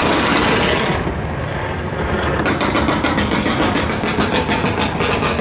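Fireworks display: a dense continuous rumble of bursting shells. About halfway through, a rapid run of sharp crackling pops starts.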